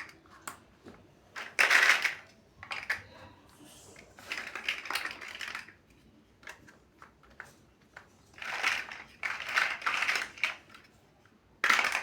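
Plastic building bricks clicking and rattling as they are handled and pressed together. The clicks come in irregular clusters of short bursts with quieter gaps between them.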